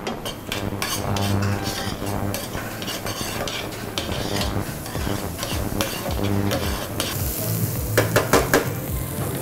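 Chopped onions sizzling as they fry in butter in a stainless steel frying pan, stirred with a metal spoon that scrapes and clinks against the pan. The onions are being fried to a golden crust.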